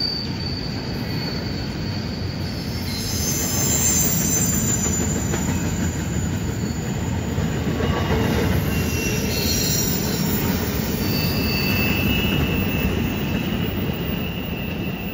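Double-stack intermodal well cars rolling over a curve: a steady rumble of steel wheels on rail, with high-pitched wheel squeal from the curve coming and going. The sound eases off near the end as the last cars pass.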